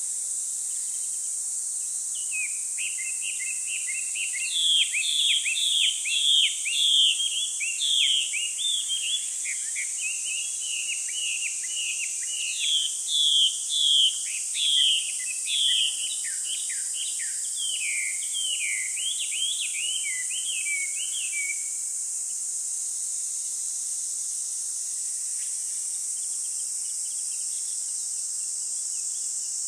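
A bird singing a long run of quick, chirping notes for about twenty seconds, over a steady high-pitched insect drone that carries on after the song stops.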